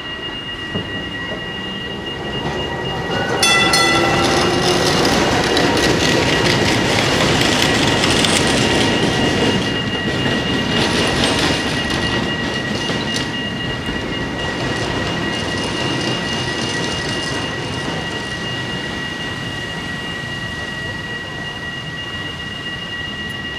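A museum tram passing over a level crossing, its wheels squealing on the rails, loudest from about four to eleven seconds in and then fading away. A short horn note sounds just before it arrives, and the crossing's warning bell rings steadily throughout.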